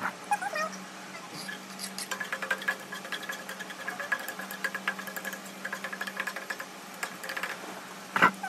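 Food frying in a hot pan on a gas stove: a steady crackle of oil spitting, with a louder burst of sizzling near the end as ingredients are tipped in from a plate.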